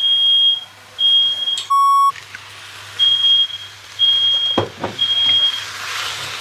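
Smoke alarm going off: a high-pitched beep about once a second. A lower, buzzier tone cuts in briefly about two seconds in, and there is a single knock near the middle.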